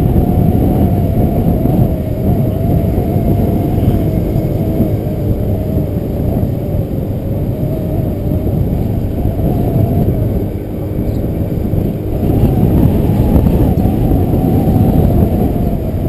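Motor scooter riding along, its small engine running under heavy wind noise on the microphone. The sound dips briefly about ten seconds in, then swells again.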